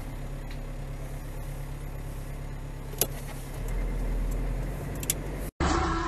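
Car road and engine noise heard from inside a moving car, a steady low rumble that swells about four seconds in as a heavy lorry passes close alongside. There is a sharp click a little after three seconds and another near five. Near the end the sound drops out for an instant and a louder engine rumble starts.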